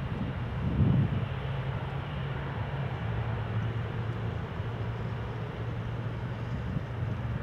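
Twin-engine jet airliner's engines running as it rolls away down the runway: a steady rumble with a low hum, and a brief louder low surge about a second in.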